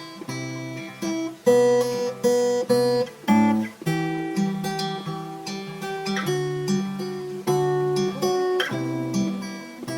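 Instrumental music: a guitar plays a repeating pattern of plucked chords, with a new chord struck about every half-second, and no singing.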